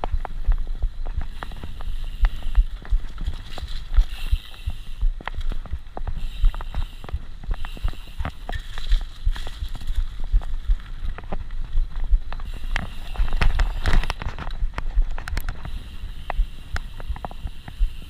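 Mountain bike rattling over a rough dirt trail: a steady low rumble with many quick clicks and knocks from the bike jolting over the ground.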